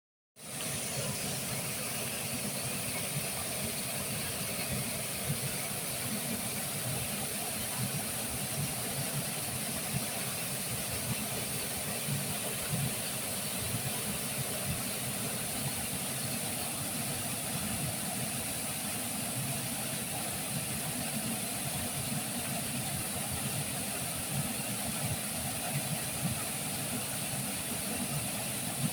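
River water flowing, a steady, even rush of noise without breaks.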